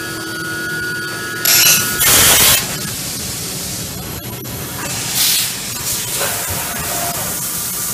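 Kitamura MyCenter-4XT CNC machining center running: a steady motor whine that cuts off about two seconds in, followed by two loud bursts of hiss, with a shorter hiss about five seconds in and fainter whining from the machine's drives between them.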